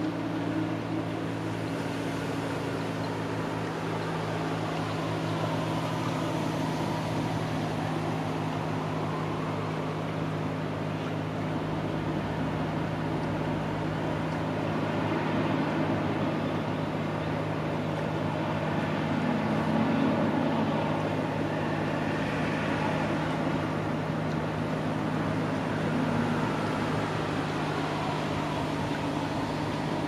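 Road vehicle noise: a steady low engine hum under a wash of traffic sound that swells and fades a few times.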